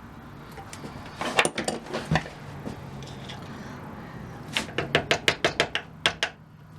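Sharp knocks driving the metal wedge out of a hammer's wooden handle: a few knocks about a second in, then a quick run of about eight taps near the end.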